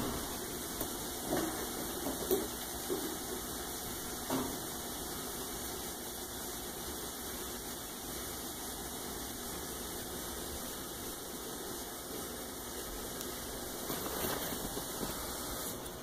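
Steady hiss of an aquarium filter running, with a few light knocks in the first few seconds.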